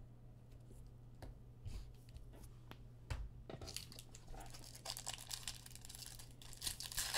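Foil wrapper of a trading card pack crinkling and tearing as it is opened by hand, quiet at first and getting louder and busier about halfway in.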